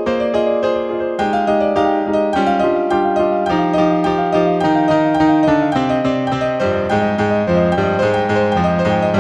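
Solo piano playing a slow, chordal piece, its bass line stepping gradually downward.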